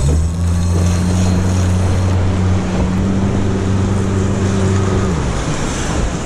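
Boat's outboard motor running at a steady low speed, then falling away about five seconds in, over wind and water noise on the microphone.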